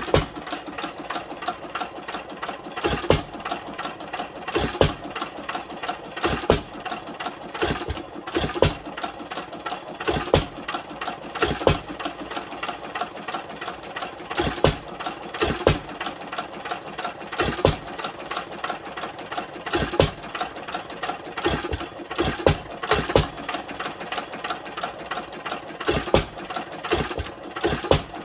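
2 hp Root & Vandervoort single-cylinder hit-and-miss engine running unloaded. It gives a sharp firing bang every second or two at uneven spacing, coasting on its flywheels between firings, with fast steady mechanical clicking.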